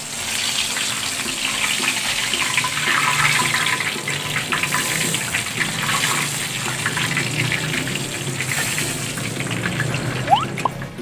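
Stuffed milkfish deep-frying in hot oil in a wok: a steady, dense sizzle full of crackling pops while the fish is turned. A short squeak comes near the end.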